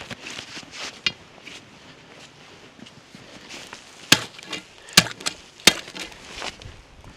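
Footsteps, then three sharp knocks near the end, a little under a second apart, the loudest sounds here.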